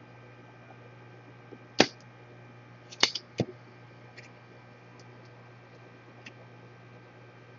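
A few sharp clicks and taps from small tools being handled at an electronics repair bench: one loud click about two seconds in, a quick cluster a second later, then faint ticks, over a steady low mains hum.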